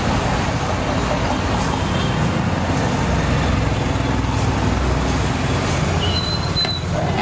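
A steady low rumble of background noise runs evenly, with no distinct single event standing out.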